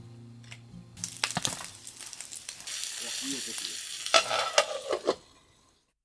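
Food sizzling and frying in a forged-iron Turk frying pan on a small stove, with sharp clicks and clinks as the food is added and moved about. The sizzle grows busier about halfway through, with a few louder clinks near the end, then fades out.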